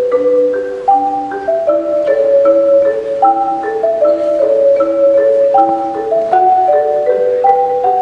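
Marimba music: a melody in held notes over a repeating lower accompaniment, several notes sounding at once.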